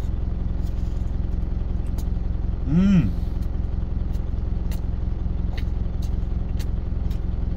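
Truck engine idling steadily, heard inside the cab; it is left running to cool down after highway driving. About three seconds in, a man's brief closed-mouth 'mmm' hum rises and falls in pitch while he chews, with a few faint clicks.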